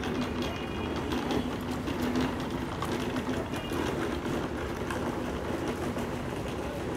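Bus station ambience: a steady low engine hum from idling vehicles under general outdoor traffic noise.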